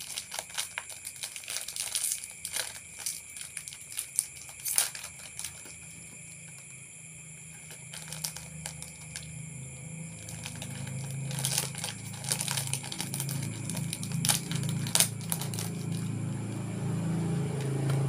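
Plastic wrapper of a Rebisco cracker packet crinkling and tearing as it is opened by hand, in clusters of sharp crackles with a quieter pause in the middle. A low hum grows louder through the second half.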